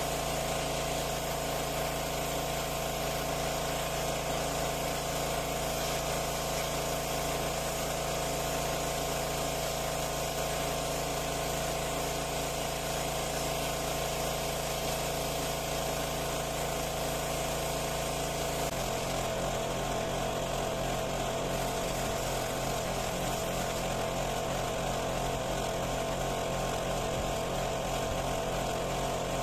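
Pressure washer running steadily, a constant mechanical drone with a hiss over it; its note changes about two-thirds of the way through.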